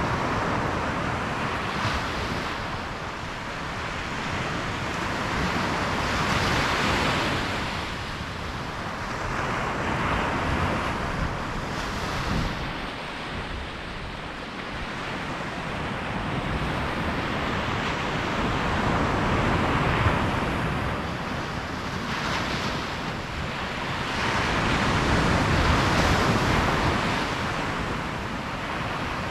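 Small ocean surf breaking and washing up on the beach, swelling and easing every few seconds.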